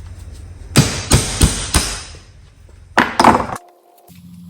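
Hammer blows knocking the bottom bearing out of a lawn tractor mower deck spindle: four quick strikes, then two more about a second later.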